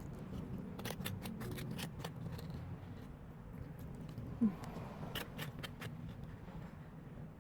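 Close bites and chewing on a hot pocket topped with avocado: a run of short, sharp crunches and clicks, with a brief rising squeak a little past halfway.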